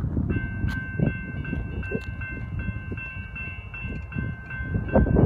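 Railroad crossing bell starts ringing about a third of a second in, quick even strokes at about four a second, over the low rumble of passenger coaches rolling past on the rails. Louder wheel thumps come near the end.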